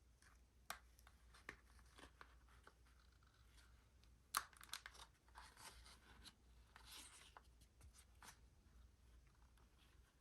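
Faint handling of goggle packaging: scattered clicks and taps with short passages of rustling, as of plastic or paper wrapping being handled. The sharpest click comes about four seconds in, followed by a few seconds of rustling.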